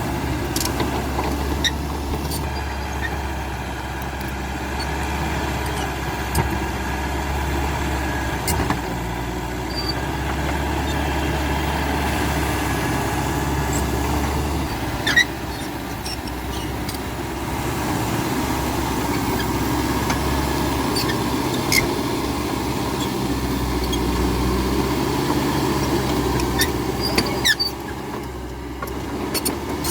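Caterpillar D5K XL crawler bulldozer working, its diesel engine running steadily with the loudness rising and falling a little, and a few short sharp squeaks and knocks scattered through.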